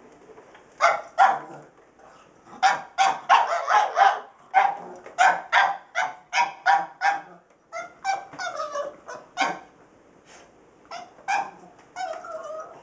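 Pug barking in quick runs of short, sharp barks, many in all, with brief pauses between the runs.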